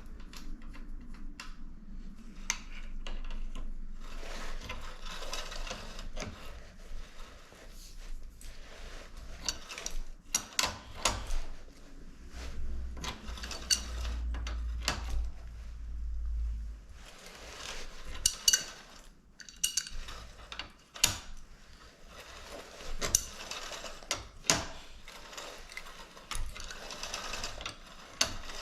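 Hand tools working a bicycle crank off its bottom bracket spindle: a crank puller being turned with a wrench, giving irregular metallic clicks, clinks and ratcheting.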